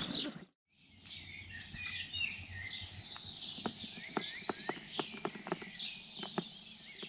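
Small birds chirping and twittering, with many short high calls. Through the middle comes a quick run of sharp clicks, a few a second.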